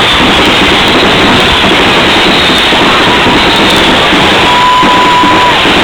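Fireworks display heard as dense, unbroken noise loud enough to overload the microphone, with a short whistle about four and a half seconds in.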